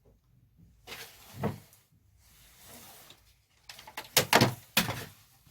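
Handling noises from an old cassette tape recorder and its power cable: rubbing and scattered knocks, then a quick run of sharp plastic clicks and knocks about four seconds in, the loudest part.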